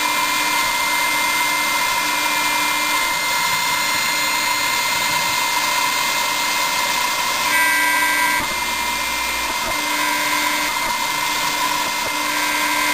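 CNC milling machine's spindle running while its end mill cuts a pocket in a white plastic plate: a steady whirring whine, with a lower hum that comes and goes as the machine moves. A little before the middle it briefly grows louder, then eases.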